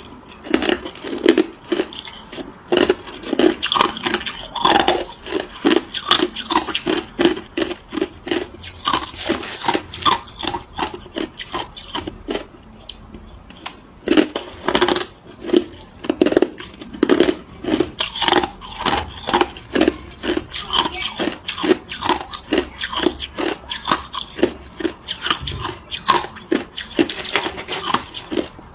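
Crushed ice being crunched between the teeth close to the microphone: a rapid, continuous run of crisp cracks and crunches, with a brief lull near the middle.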